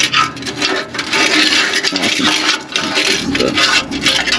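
Metal exhaust parts clinking, knocking and scraping in rapid, irregular clicks as a pipe section and its clamp are handled under a truck.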